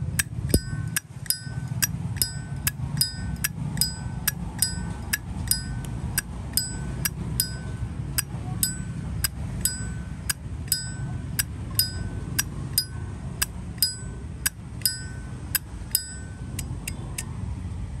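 Zippo lighter lid flicked open and snapped shut over and over, about two sharp metallic clicks a second, each with a brief bright ping from the hinge and cam spring. This is the lid 'sound' that collectors judge a Zippo by.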